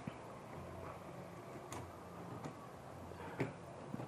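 Faint, scattered plastic clicks and taps as an inkjet print head is worked free of the printer's carriage by hand.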